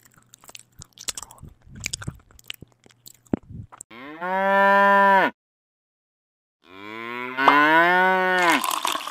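A cow crunching and chewing grass, a run of irregular clicks, then two long cow moos, the second rising and then falling in pitch. Liquid starts pouring near the end, milk streaming into a bucket.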